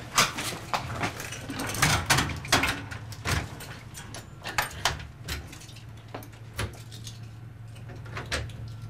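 A storm door and the front door behind it being opened: a series of clicks, knocks and rattles from the latch, handle and door frame.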